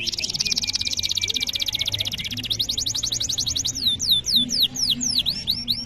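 Domestic canary singing a long unbroken song: fast, rapidly repeated high notes in trills, then a run of slower notes that each sweep steeply downward, about three a second.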